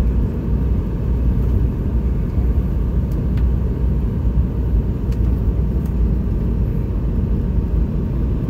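Steady low rumble of a Boeing 717 in flight, heard inside the passenger cabin during the descent to land: airflow over the airframe and its tail-mounted turbofan engines.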